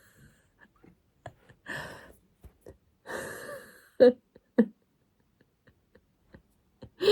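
A woman's breathy, stifled laughter: a few long breaths out, then two short voiced bursts a little after four seconds in.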